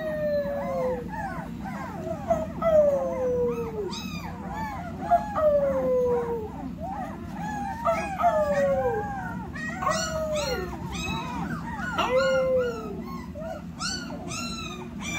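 A litter of young puppies whining and crying together: many overlapping falling whines, with short high yips coming thicker over the second half. A steady low hum runs underneath.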